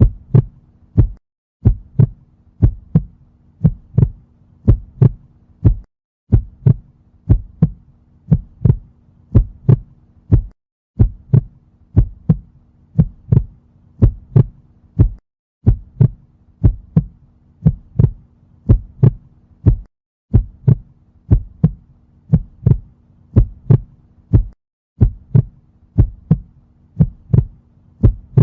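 Heartbeat sound effect: steady paired 'lub-dub' thumps, a little more than one beat a second, over a faint steady hum. The hum and beats drop out in short gaps every four to five seconds, where the recording loops.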